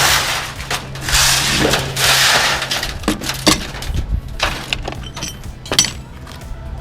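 Aluminum porch framing and panels being torn down and piled, crashing and scraping, then clattering with a run of sharp knocks.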